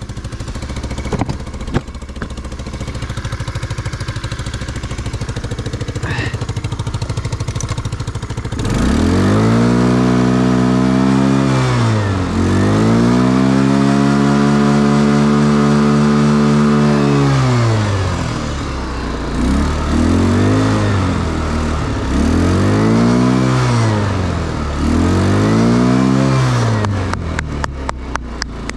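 ATV engine running, steady at first. It then revs: one long rise in pitch held for several seconds and falling back, followed by three shorter rises and falls. It is running on a newly fitted battery after failing to start.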